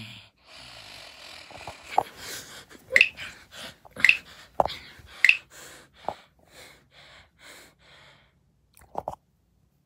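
Hands slapping a sleeping person's face, several sharp smacks, amid a rapid run of breathy bursts about two a second.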